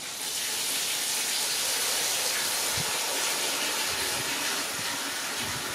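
A steady rushing hiss that starts suddenly, with a few soft low thumps about three, four and five and a half seconds in.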